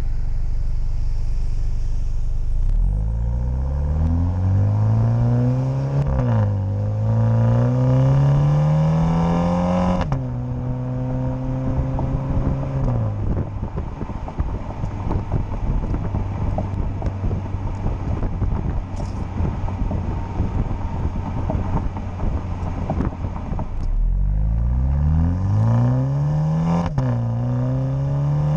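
Exhaust of a 2020 MINI John Cooper Works Countryman's turbocharged 2.0-litre four-cylinder in sport mode, kept under 4,500 rpm during break-in. It accelerates with a rising note that drops briefly at an upshift and climbs again, then holds a steady pace with a rough, uneven rumble. Near the end it pulls away again with rising revs and two more quick upshifts.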